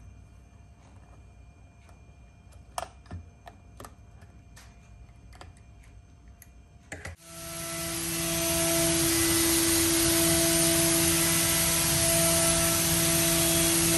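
A few light clicks and taps as a mirrored glass cube panel is set in place with a suction-cup lifter. About seven seconds in, a CNC machining centre milling a metal part under coolant comes in and builds to a loud, steady whine and hiss, with tones that come and go as the cut goes on.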